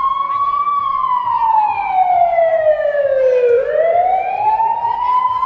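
A wailing siren sound effect played over dance music. Its pitch slides slowly down for about three seconds, then swoops back up, above a steady low beat.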